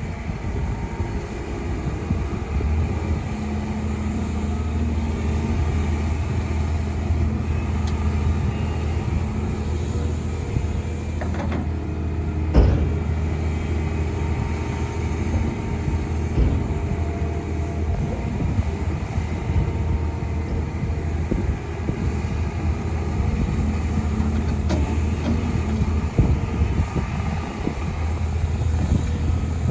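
Diesel engines of a Volvo EC300E excavator and a Scania dump truck running steadily with a low hum. A single sharp bang stands out about twelve seconds in, with a few smaller knocks around it.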